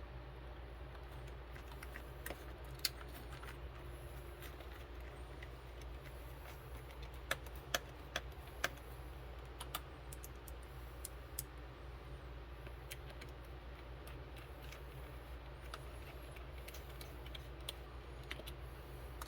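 Scattered light clicks and taps of small tools and parts being handled while working on an RC truck's motor plate and gears, with a few louder clicks about seven to nine seconds in, over a steady low hum.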